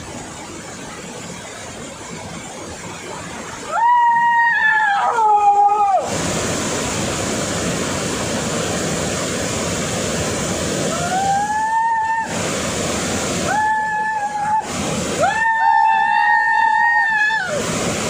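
Steady rush of a small waterfall pouring between boulders, with four long, high held calls over it, gliding up or down at their ends, from men bathing under the falling water: about four seconds in, twice around twelve to fourteen seconds, and a longer one near the end.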